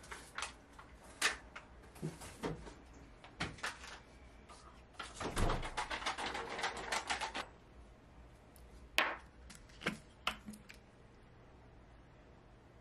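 Kitchen handling sounds: scattered clicks and knocks from a refrigerator door and items being taken out, with a denser clatter lasting about two seconds midway and a few more knocks after it.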